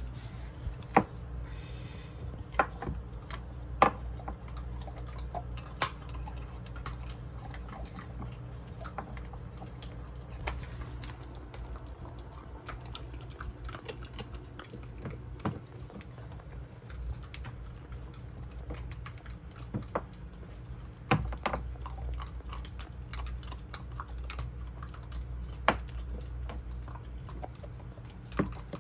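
Samoyed puppy chewing and gnawing on a chew stick, with irregular crunches and sharp cracking clicks from its teeth scattered throughout.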